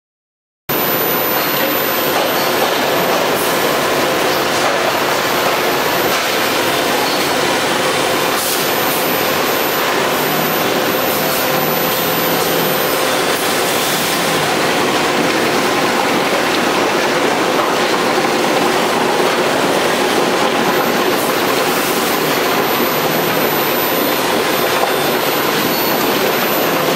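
Heavy machinery running steadily while pouring a load: a loud, even rushing noise with faint steady hum tones underneath, starting abruptly about a second in.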